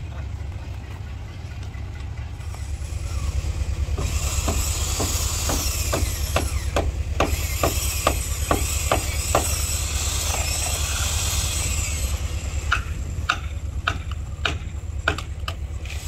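Two runs of steady hammer blows on the timber of a wooden fishing boat, about two to three strikes a second, with a pause in the middle. A steady low machine hum and a high hiss run underneath.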